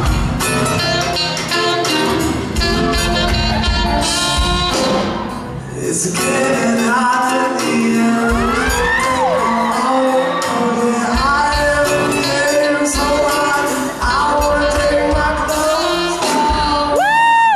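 Live band performance: a male singer with acoustic guitar, electric bass and drums, heard through a hall. Audience members scream and whoop over the music, loudest with a high scream near the end.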